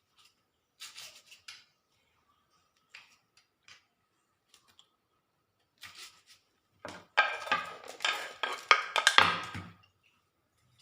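Kitchen utensils being handled: scattered light clicks and knocks, then about three seconds of loud clattering of metal dishes and spoons with a ringing tone.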